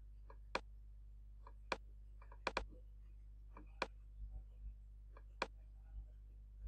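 Computer mouse clicking: a handful of sharp single clicks, one quick double click about two and a half seconds in, over a steady low electrical hum.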